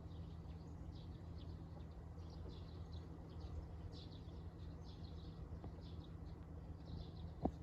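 Faint outdoor ambience: small birds chirping again and again over a steady low hum, with a single sharp click near the end.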